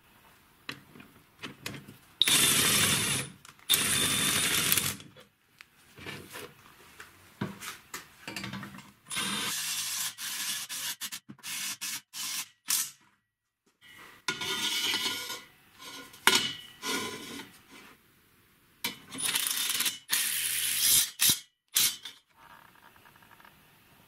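Cordless impact driver running in several short bursts of a second or two each, working on a steel scissor car jack, with clinks and knocks of metal parts being handled between the bursts.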